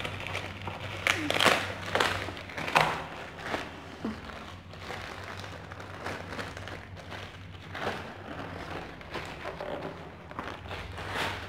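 Plastic courier bag and bubble wrap crinkling and rustling as they are torn open and pulled off a boxed bathroom scale, in a string of sharp crackles that are loudest in the first few seconds. A steady low hum runs underneath.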